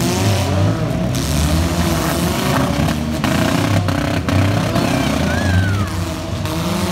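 Several demolition derby cars' engines revving hard at once, their pitches rising and falling over one another.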